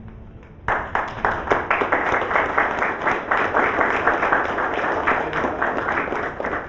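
Audience applauding, a dense patter of many hands clapping that breaks out a little under a second in and continues steadily.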